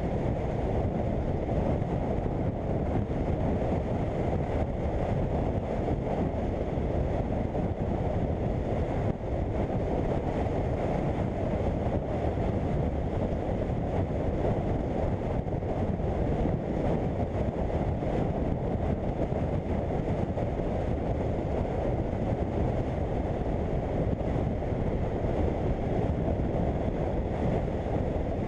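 BMW F800GS motorcycle on the move: a steady wind rush over the microphone, with the bike running underneath.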